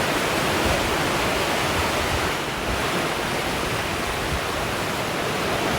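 Steady, loud rush of fast-flowing white water.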